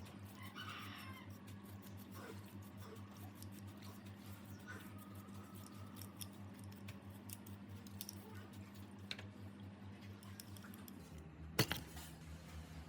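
Small scattered clicks and taps of hand work on small parts, with one sharper knock near the end, over a steady low hum.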